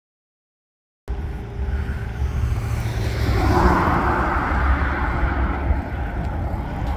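After about a second of silence, road traffic: a vehicle passes, its tyre and engine noise swelling about three seconds in and then fading, over a steady low rumble.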